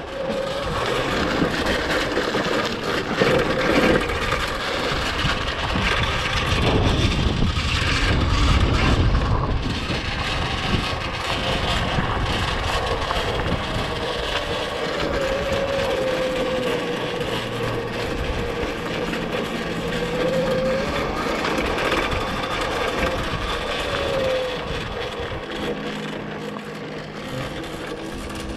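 Electric pit bike's 2000 W QS Motor mid-drive motor whining under way, its pitch rising and falling with speed, over a steady rush of wind and tyre noise on a dirt trail.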